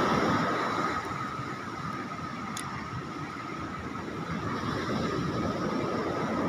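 A boat's motor running steadily with a thin constant whine, over wind and sea noise.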